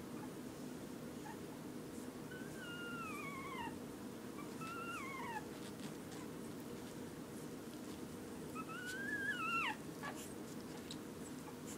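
Newborn puppies, 11 days old, whimpering as they nurse: three thin, high cries that slide down in pitch, the last and loudest rising a little before dropping off sharply, over a steady low room hum.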